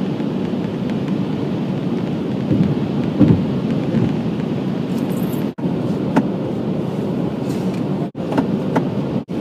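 Steady low rumble of road and engine noise inside a moving car's cabin, with a few faint knocks, cutting out for an instant three times in the second half.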